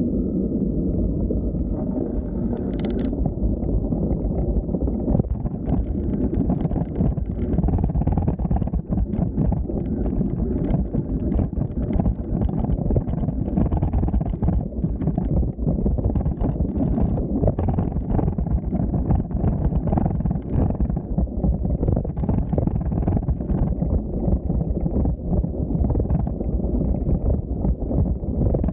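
Wind buffeting the microphone of a camera on a moving bicycle: a steady, loud rumble with a dense crackle of small rattles over it.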